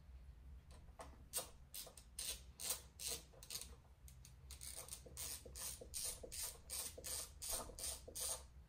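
Socket ratchet clicking on its return strokes while undoing bolts, in a run of sharp ticks about three a second with a short pause partway through.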